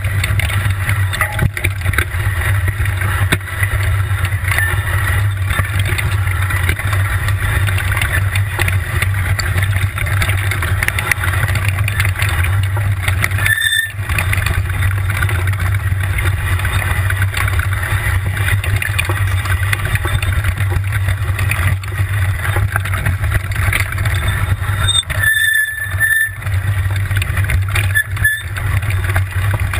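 Tricycle rolling down a wet, muddy track strewn with leaves and gravel: a steady rumble and rattle of tyres and frame, picked up by a camera mounted low on the frame. The noise briefly drops away twice, about halfway through and again after about three quarters.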